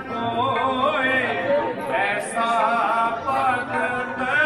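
Male voices singing Sikh devotional hymns (Gurbani kirtan) in a slow, melodic chant over a steady low drone.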